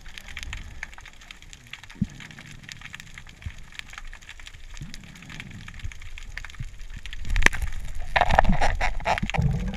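Underwater sound picked up by a camera in its housing: a steady crackle of many small clicks, with a sharp knock a little after seven seconds and louder water rushing and sloshing over the last two seconds.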